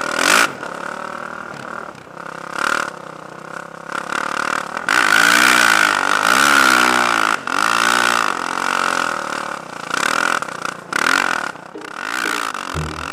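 Single-cylinder four-stroke engine of a Kawasaki 450 dirt bike with a Timbersled snow-bike kit, revving up and down as it rides through powder, with repeated rushes of noise over it.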